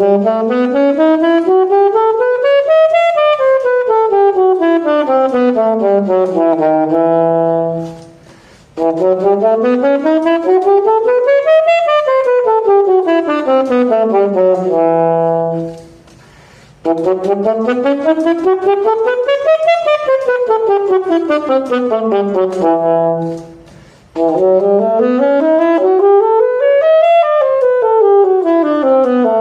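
Saxophone playing scales, from the E major – C-sharp minor scale set. Four runs, each stepping up about two octaves and back down and ending on a held low note, with brief pauses between them.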